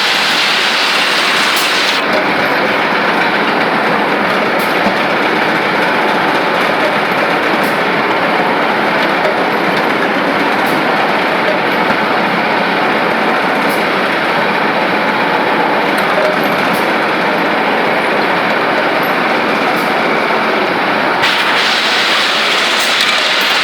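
Servo-controlled CNC pipe-cutting lathe running, a steady, even mechanical noise.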